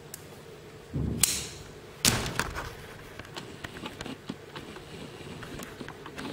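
Custom folding knife with a D2 steel blade and a Ti 6-4 titanium frame lock being opened: a soft thud with a click about a second in, then a sharp snap about two seconds in as the blade swings open and locks. Lighter clicks and ticks follow as the knife is handled.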